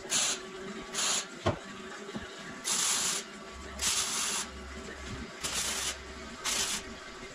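Electric arc welding in short bursts: about six tack welds, each a hissing burst under a second long. There is a single knock about one and a half seconds in.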